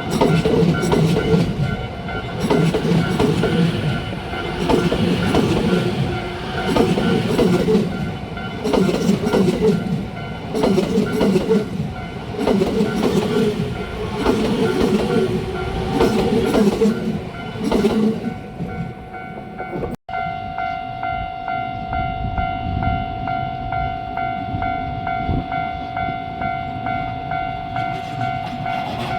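Level-crossing alarm bell ringing steadily while a JR Narita Line train rolls past, its wheels clattering over the rail joints in a regular beat about every two seconds. The train noise stops abruptly about two-thirds of the way through, and the crossing bell rings on alone.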